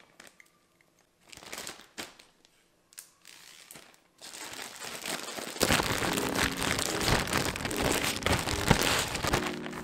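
Plastic zip-top bag crinkling as it is handled and sealed, then shaken hard with raw potato sticks inside, giving a loud, continuous rustle and rattle over the last few seconds.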